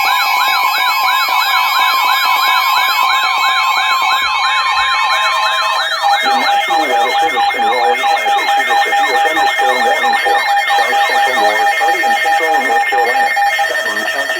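Electronic siren sound: fast rising-and-falling wails, about three a second, several layered over each other above steady beeping tones. About six seconds in, the wails thicken and a lower layer joins.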